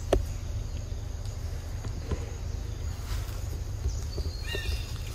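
Forest ambience: a steady high insect drone over a low rumble, with a sharp click just after the start and a quick run of falling chirps from an animal call about four and a half seconds in.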